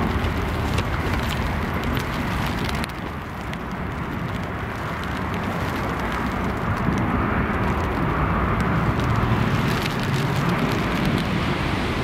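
Storm-force wind buffeting an outdoor microphone: a loud, rushing roar with a deep rumble and crackles that eases slightly about three seconds in, then builds again in gusts.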